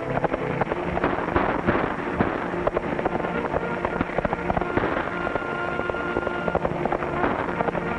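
A galloping horse's hoofbeats, a fast, uneven run of clattering knocks, over background film music with held notes.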